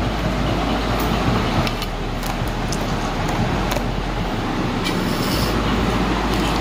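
Steady background noise with a low hum and a few faint clicks.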